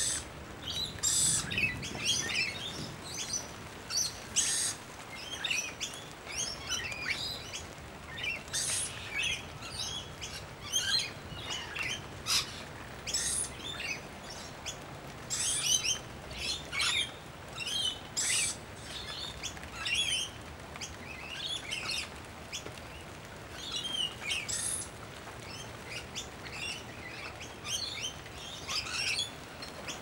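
A flock of birds calling: short chirping calls in quick runs, several birds overlapping, with brief gaps of a second or two between bursts.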